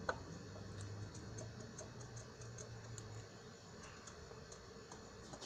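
Faint light clicking from a socket wrench working on the water pump pulley bolts, over a low steady hum.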